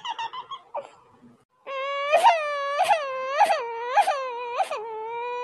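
High-pitched cartoon voice crying: a wail broken by five regular sobbing catches, then one long held wail near the end. It starts about a second and a half in, after the tail of a line of speech.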